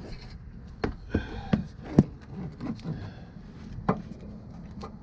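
Scattered sharp clicks and knocks of hard plastic parts being handled, the loudest about two seconds in, as an LED bulb is worked into a truck's headlight housing.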